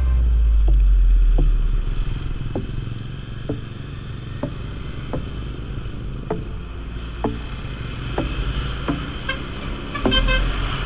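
Motorcycle riding along, heard from on the bike: a steady low engine-and-road rumble, louder for the first couple of seconds, with a light tick about once a second.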